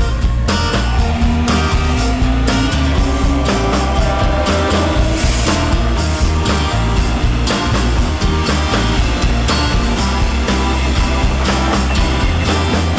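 Background music: an upbeat track with a steady beat.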